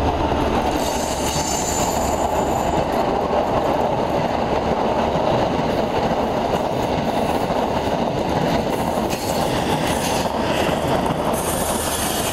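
InterCity 125 High Speed Train passing close: its Mk3 coaches roll by with a steady rumble and rattle of wheels on the rails, and a faint high wheel squeal in the first few seconds.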